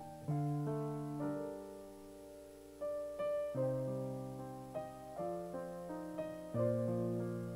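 Stage keyboard played as a piano: slow, soft chords struck one after another, each left to ring and fade before the next.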